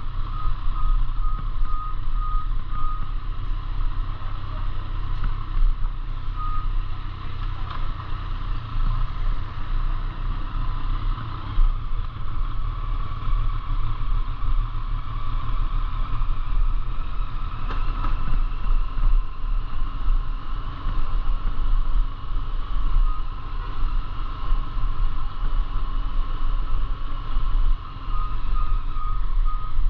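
Steady low rumble of a moving vehicle, with a short high electronic beep repeating about three times a second at the start and again near the end.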